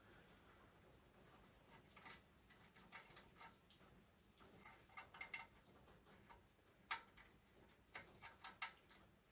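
Near silence broken by faint, scattered sharp clicks and light ticks: a single click about two seconds in, another about three seconds in, a few around five seconds, and a quick cluster near the end.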